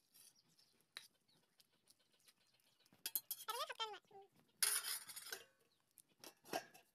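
Faint clinks of a steel ladle and lid against a steel karahi of boiling greens, with a sharp clink near the end as the lid is set on. A short animal call with wavering pitch comes about three and a half seconds in, and a brief noisy scrape about five seconds in is the loudest sound.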